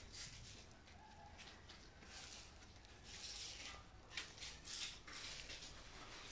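Faint rustling and a few soft knocks over a quiet background.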